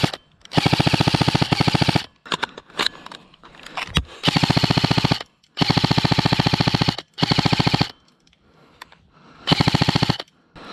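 Airsoft rifle firing on full auto in five bursts of rapid, evenly spaced shots, each burst half a second to a second and a half long, with short pauses between them.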